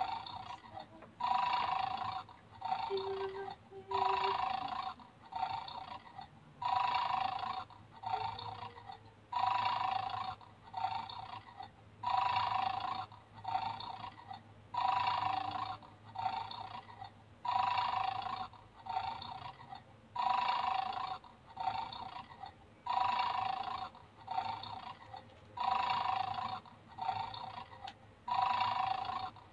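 Electronic bulldog toy from a snatch-the-treat game playing its recorded snoring loop, the toy dog 'asleep' while it guards its treat. Identical snores repeat evenly, a louder and a softer one alternating about every one and a half seconds.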